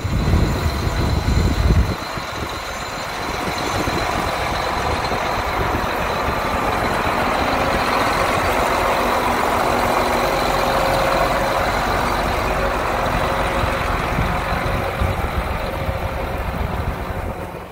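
John Deere 8310R tractor's six-cylinder, 9-litre twin-turbo diesel engine running steadily. It has a heavier low rumble in the first two seconds before it settles.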